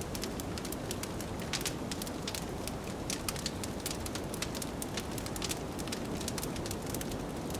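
Wood fire crackling in a fireplace, with frequent sharp irregular pops over a steady low rush of blizzard wind.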